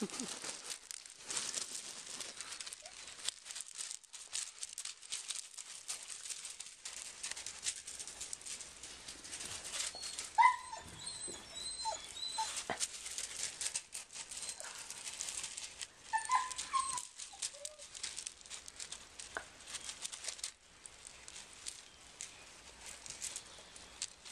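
Puppies playing on gravel: steady crunching and scuffling of stones under their paws. There are short high yelps and whines about ten seconds in and again a few seconds later.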